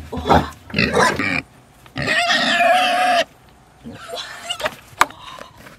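Young pig squealing and grunting as it is grabbed and carried. There are short squeals in the first second and a half and one long squeal about two seconds in, then softer grunts, with a sharp click near the end.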